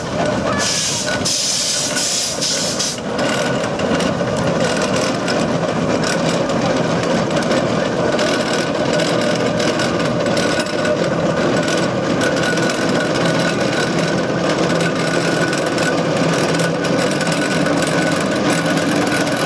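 1929 Fowler steam road roller running steadily, with steam hissing for the first few seconds.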